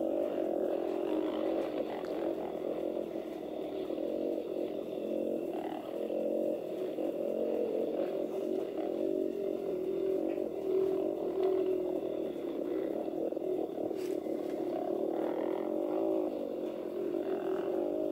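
150cc dirt bike engine running steadily under throttle on a trail ride. It is heard from a helmet-mounted camera as a muffled drone that rises and falls a little with the throttle.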